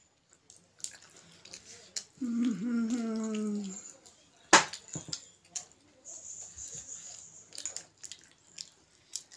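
Close-up eating sounds of people eating steamed momos: small wet mouth clicks and lip smacks, with a drawn-out voiced 'mmm'-like sound falling in pitch about two seconds in. About halfway there is one sharp smack, the loudest sound, and later a brief hissing breath or slurp.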